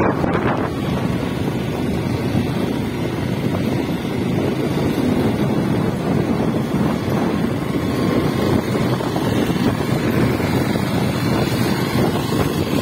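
Motorcycle running steadily along the road, its engine and road noise mixed with wind buffeting the microphone.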